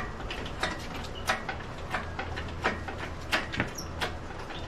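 Sharp metallic clicks and knocks from a shop engine hoist and the engine hanging on it as the engine is worked down into the car's engine bay, one about every two-thirds of a second over a low steady hum.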